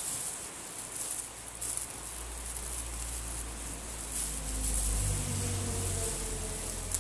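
A thin plastic bag rustling and crinkling as it is folded and worked by hand and teeth, over a steady high hiss. A low hum comes in about two seconds in.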